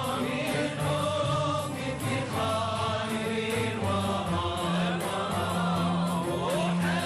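Background music: a group of voices chanting together in long held notes.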